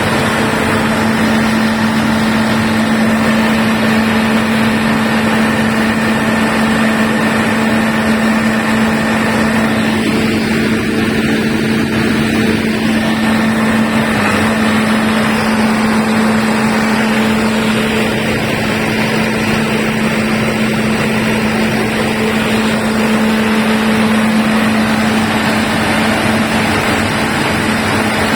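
Diesel generator running steadily at constant speed: a loud, even engine drone with a steady pitched hum.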